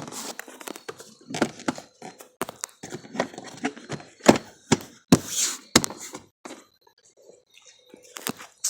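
Irregular knocks, thunks and clatters of parts being handled as the ATV's seat is fitted back on, with short quiet gaps between them.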